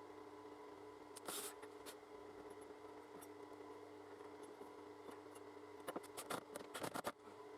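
Light clicks and small handling noises over a faint steady hum, with a short scrape about a second in and a cluster of clicks near the end.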